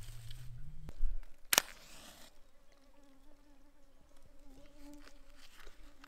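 A wooden match struck on the side of its matchbox about one and a half seconds in: a short scratch with a brief hiss as it flares. After that, a flying insect buzzes close by, a steady hum that wavers slightly in pitch.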